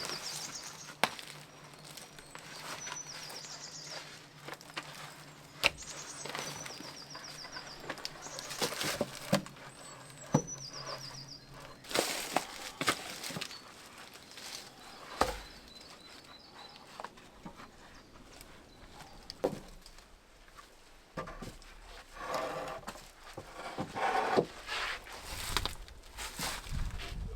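Footsteps and scattered knocks outdoors, with a small bird singing short high phrases that step down in pitch, a few times in the first half.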